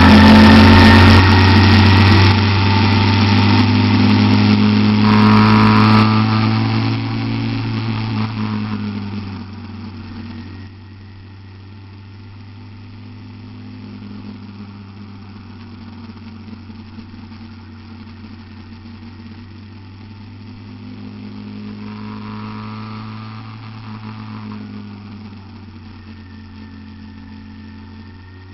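Small gasoline engine of a motorized bicycle running steadily while riding, loud for the first several seconds, then much quieter from about ten seconds in.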